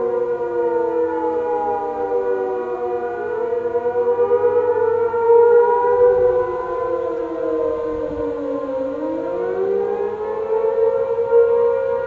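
Several outdoor warning sirens sounding together in the wavering attack signal of a weekly test, their pitches gliding up and down out of step with one another. About two-thirds of the way through, one siren sinks to a low pitch and winds back up.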